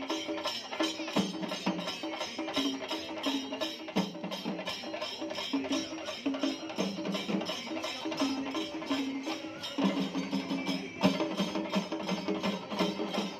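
Festival procession music: fast, even percussion strokes of about four a second with a pitched melody stepping up and down over them. The melody drops out briefly about ten seconds in while the beat carries on.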